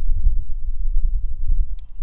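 Wind buffeting an action camera's microphone: a loud, uneven low rumble.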